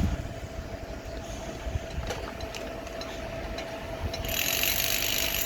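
Machinery running with a low rumble and a steady whine, with scattered clicks and knocks and a burst of hiss near the end.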